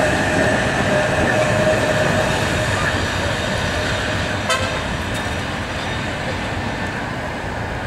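Open-top Blackpool Balloon tram running past on the tramway: steady running noise with a high whine that fades about three seconds in, and a brief rattle about four and a half seconds in.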